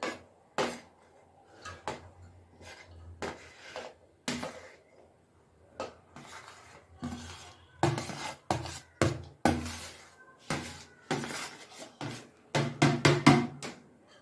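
Metal spoon clinking and scraping against a metal pot and a plate as cooked rice is spooned in layers for biryani: a string of irregular taps and knocks, quicker and louder in the second half.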